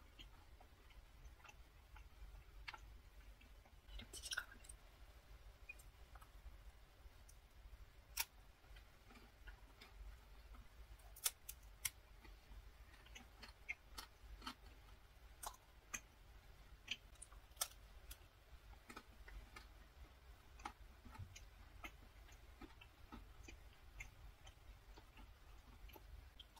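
Faint close-up chewing of a macaron: irregular soft clicks and crackles of the crisp shell and mouth as it is bitten and chewed.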